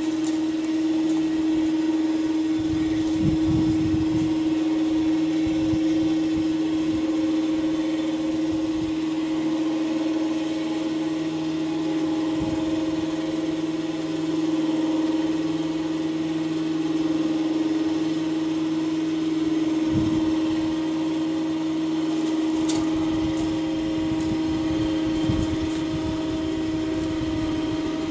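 Electric ATV winch motor running steadily with a constant whine, paying out cable under the load of an aluminium boat being lowered from a truck rack. A few low knocks sound briefly.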